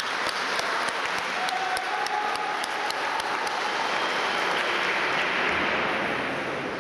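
Spectators applauding, a dense patter of clapping that eases off slightly near the end.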